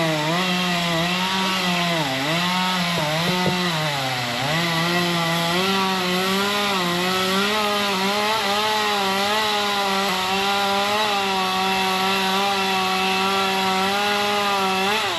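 Chainsaw running at full throttle cutting wood: its pitch dips several times in the first four seconds as the chain bites, then holds high and steady, and falls away near the end as the throttle is let off.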